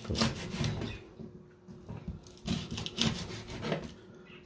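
Kitchen knife slicing green chillies into small rings on a plastic cutting board: a series of short, irregular knife strokes against the board, with a brief lull in the middle.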